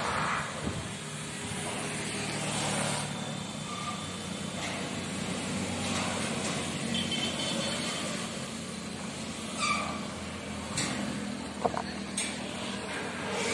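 Maruti Suzuki Eeco van's engine running at low speed as the van rolls down a steel loading ramp off a car-carrier truck and onto gravel, with a sharp knock near the end.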